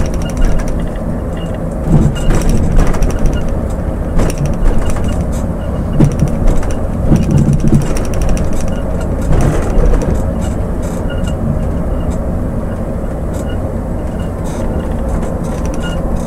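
Scania coach's diesel engine pulling under throttle, heard from inside the driver's cab over steady road noise, with scattered clicks and rattles from the cab.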